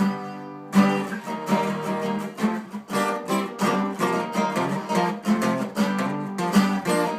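Guitar strumming chords: a chord rings out at first, then steady rhythmic strumming starts about a second in.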